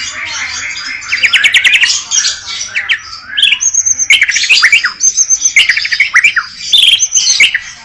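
White-rumped shama (murai batu) singing a loud, varied song packed with mimicked phrases: fast runs of sharp repeated notes, sliding chirps and short high whistles.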